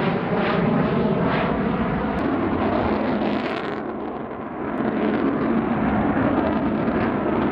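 Avro Vulcan jet bomber flying past overhead, its four Rolls-Royce Olympus turbojets giving a loud, steady jet roar with a whining tone in it. The sound dips briefly about halfway through, then rises again as the aircraft turns.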